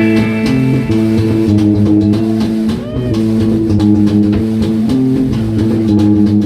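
Live rock band playing an instrumental passage: electric guitar and bass holding chords, with a drum kit keeping the beat. The full band comes in strongly at the start.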